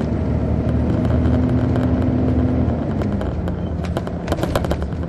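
Detroit Diesel Series 60 diesel engine of a 2002 MCI D4000 coach running under way, heard inside the cabin from the rear seats. The engine note holds steady, then drops slightly about three seconds in, with frequent small clicks and knocks of cabin rattle over it.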